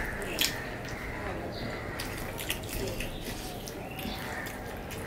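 Soft wet eating sounds: chewing and lip smacks, and fingers squishing rice and curry on a plate, with a sharp click about half a second in.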